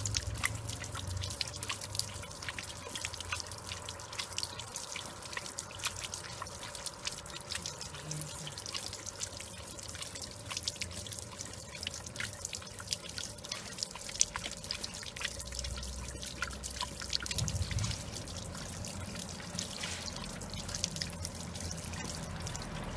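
Water from a street drinking fountain splashing and dripping as a Great Dane laps at the stream, a steady patter of small drips and splashes.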